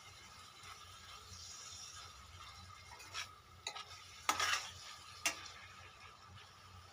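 A utensil stirring meat and onions in a stainless steel pot, knocking and scraping against the metal a few times between about three and five and a half seconds in, the loudest scrape at about four and a half seconds. A low steady sizzle of the meat cooking in its juices runs beneath.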